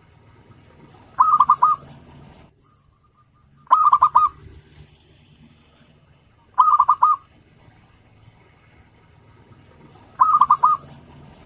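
Zebra dove (perkutut) cooing: four short phrases, each a quick run of pulsing notes about half a second long, spaced a few seconds apart.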